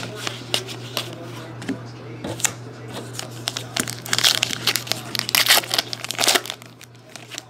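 Silver foil wrapper of a 2013 Goodwin Champions trading-card pack crinkling and tearing as it is pulled open by hand, loudest from about four seconds in. Before that, a few light clicks of cards being flipped through.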